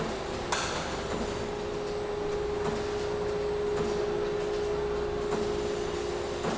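Factory interior ambience: machinery running steadily with a constant hum and a broad wash of mechanical noise, broken by a sharp knock about half a second in and a few fainter knocks after it.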